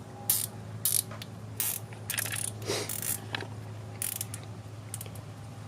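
Irregular ratcheting clicks and short rasps of hand work on parts in a car's engine bay, over a steady low hum.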